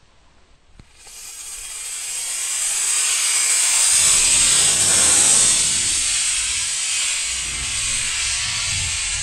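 Model rocket motor igniting and burning with a loud hiss, starting suddenly about a second in, building, then easing as the rocket climbs away.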